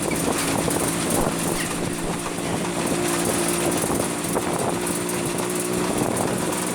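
A motor running steadily: a constant low hum over a wash of noise, with no change in speed.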